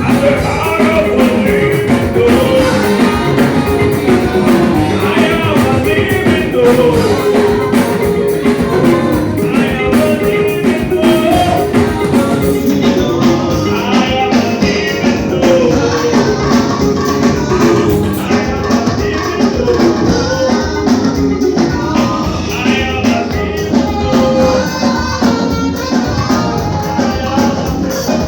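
Live band music with drums and percussion under a wavering melodic lead line, played during a sound check.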